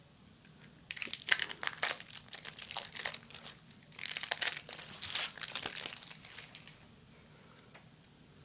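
Plastic wrapping on a sealed trading-card starter deck being torn and crinkled open by hand, in crackling bursts from about a second in until near seven seconds.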